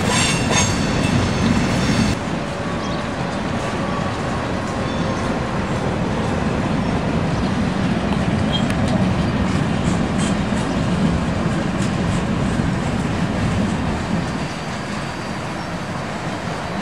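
Loaded steel coil freight cars rolling past on steel wheels, a steady rumble and rattle of wheels on rail. A high-pitched wheel squeal cuts off about two seconds in.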